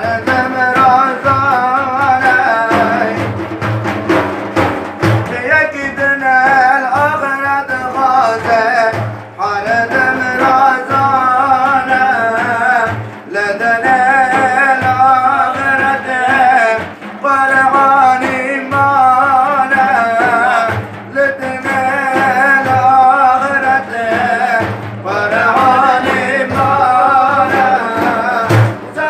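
Sufi devotional chant (ilahi/hadra) sung in long, ornamented, wavering phrases with short breaks between them, over repeated low drum beats.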